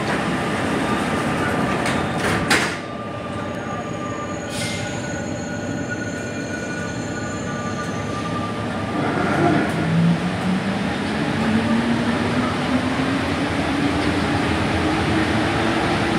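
Sliding doors of an Alstom NS-93 metro train closing with a couple of sharp knocks about two and a half seconds in, over the steady hum of the train. From about ten seconds in, the train pulls away and its traction motors whine, rising steadily in pitch as it accelerates.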